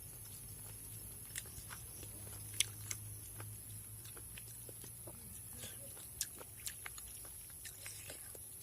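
A person chewing and eating, with scattered small clicks and mouth smacks over a low steady hum.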